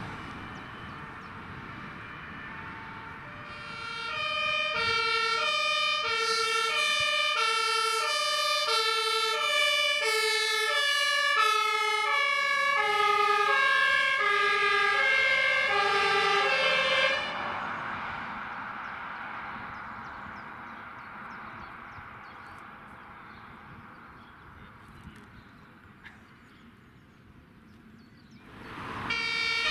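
German two-tone emergency siren (Martinshorn) on a fire brigade vehicle passing by. Its two notes alternate about once a second and drop in pitch as it goes past, then the siren cuts off about 17 seconds in and the vehicle's sound fades away. Near the end a second vehicle's two-tone siren starts up.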